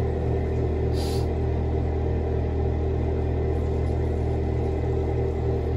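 A steady low hum with a brief hiss about a second in.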